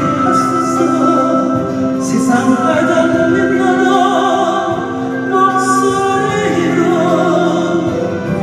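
A voice singing long held notes over instrumental accompaniment.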